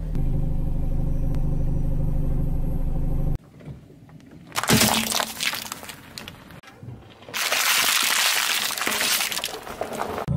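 A car engine running low and steady. After an abrupt cut come two long stretches of plastic packaging and candy cracking and crunching under a car tyre, each about three seconds.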